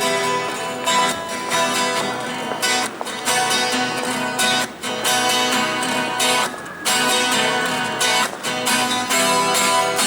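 Guitar strumming rhythmic chords as an instrumental song intro.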